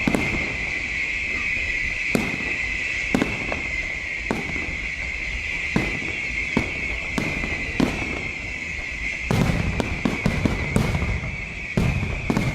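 Fireworks going off in a display: sharp bangs about once a second, coming thicker and faster near the end, over a continuous high hiss.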